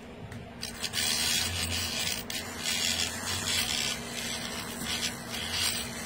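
Homemade electric lock pick made from an Oral-B electric toothbrush, its thin hardened-steel blade buzzing and rasping against the pins inside a rim cylinder held under a tension wrench, bouncing the pins toward the shear line. The raspy rattle starts just under a second in and swells and fades unevenly over a steady hum.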